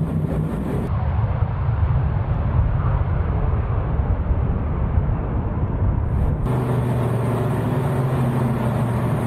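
A McDonnell Douglas DC-9-30's JT8D jet engines running hard, with airframe noise, as a loud steady rumble. The sound changes abruptly about a second in and again about six and a half seconds in, when a steady engine hum comes up.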